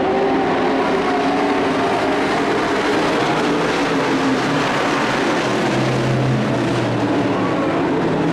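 A pack of dirt-track race trucks running at speed: several engines at once in a loud, steady drone, their pitches wavering and shifting as the trucks go round.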